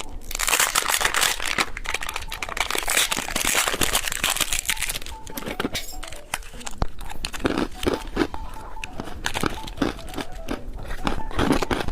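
Plastic candy packaging crinkling and tearing as a surprise-egg candy toy is unwrapped. Dense crinkling for the first half, then scattered lighter crinkles and clicks of plastic.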